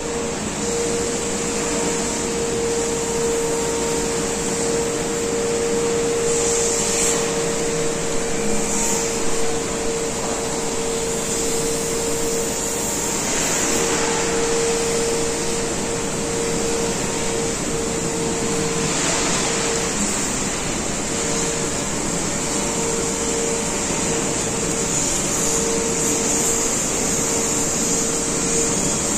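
Steady industrial drone of machinery inside a steel smelter hall, with a constant mid-pitched hum that starts cutting in and out about two-thirds of the way through. A few brief rushes of noise rise over it.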